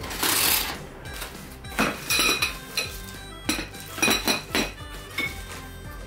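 Cardboard carton of a metal rack kit being slit and pulled open, a short rough rush at the start, then the rack's metal poles clinking and knocking together several times as they are lifted out and handled, with short metallic rings.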